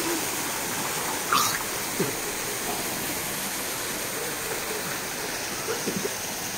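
Steady rush of swimming-pool water with light splashing from a swimmer, and a brief sharper burst about a second and a half in.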